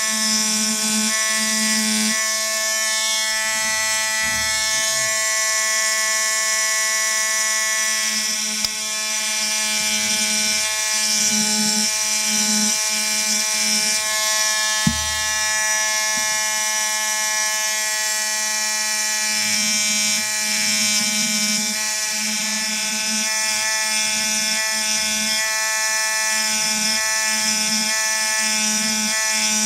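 Pneumatic air scribe (air pen) buzzing steadily as its stylus chips stone matrix off a small ammonite nodule, the buzz swelling and easing as the tip bears on the stone. Two sharp clicks, about a third of the way in and about halfway.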